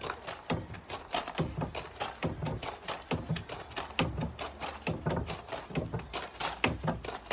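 Trainers striking a low step block again and again during step-ups, several quick footfalls a second.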